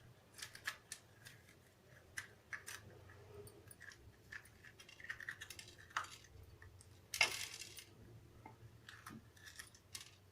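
Faint, scattered snaps and scrapes of fresh green chillies being split open by hand and their seeds pulled out, with one louder rustle about seven seconds in.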